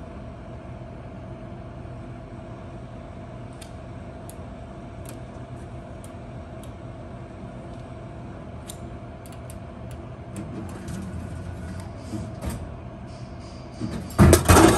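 Steady hum of a Royal Vendors Model 8000 can vending machine running, with a few light ticks. Near the end, a short loud clatter as a can is pulled out of the delivery bin.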